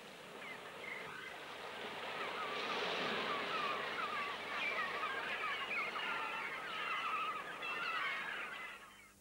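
A flock of birds calling in many quick, wavering chirps over a steady rushing noise. The calls swell about two seconds in and cut off abruptly just before the end.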